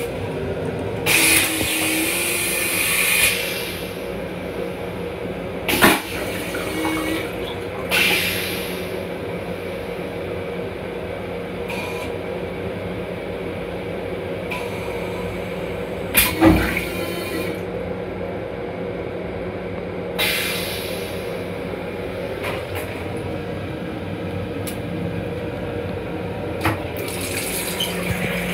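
Train restroom toilet with a stainless-steel bowl being flushed: a couple of seconds of rushing water about a second in, then several clunks, the loudest about halfway through, over a steady hum. Near the end the sink faucet runs.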